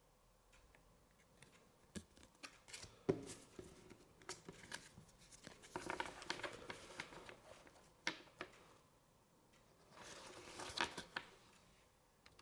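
Pokémon trading cards and their foil booster wrapper being handled: three stretches of rustling and crinkling, with small clicks and taps between them.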